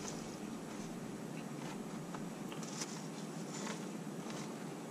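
Faint soft rustling and a few light ticks as wet, soaked sticky rice is spread and pressed by hand into a cloth-lined bamboo steamer, over a steady background hiss.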